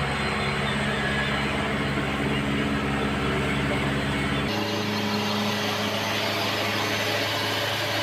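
Hyundai wheeled excavator's diesel engine running steadily while the machine works its boom and bucket. About halfway through, the low rumble drops away abruptly.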